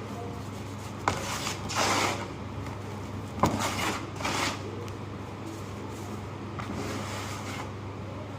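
Dry clumps of ash, sand and charcoal crumbling in several short, crunchy bursts in the first half, then only a faint crumble near the end. A steady low hum runs underneath.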